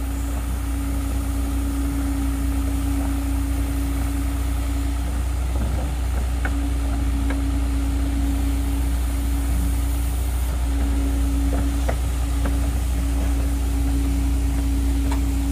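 Hitachi crawler excavator's diesel engine running steadily under a constant whine as the machine moves, with a few sharp clanks about six seconds in, around twelve seconds and near the end.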